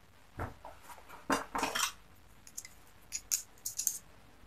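Light metallic clicks and clinks of a thin steel pick and the small plunger of a Yamaha Autolube two-stroke oil pump knocking together as they are handled. The taps are scattered and irregular, with a short cluster just after the first second and several more in the second half.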